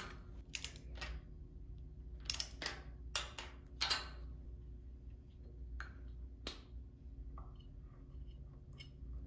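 A torque wrench ratcheting and clicking in short groups as a spark plug is tightened to 18 ft-lb through most of the first four seconds. After that come a few softer clicks and knocks of tools and parts being handled, over a low steady hum.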